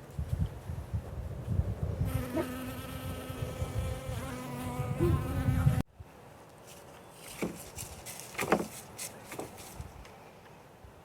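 Honeybee buzzing in flight close by: a steady hum that starts about two seconds in and cuts off abruptly near the six-second mark, over a low rumble. A few faint light ticks follow.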